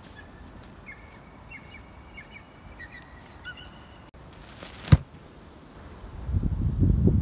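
Quiet outdoor ambience with a few thin, high whistled bird notes at several pitches in the first half. A single sharp knock comes about five seconds in, then a low buffeting rumble builds near the end.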